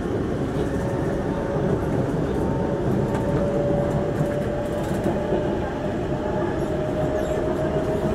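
Inside the carriage of a Singapore MRT train running between stations: a steady rumble of wheels and running gear. Over it sits a faint whine that creeps slightly upward in pitch.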